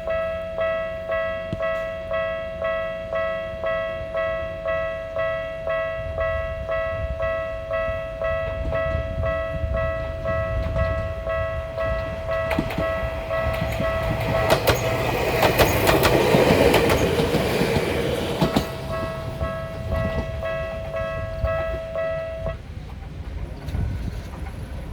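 Japanese level-crossing warning bell ringing at about two strokes a second while an Ueda Electric Railway 1000 series electric train passes, its wheels clattering over the rail joints, loudest about 15 to 18 seconds in. The bell stops about 22 seconds in.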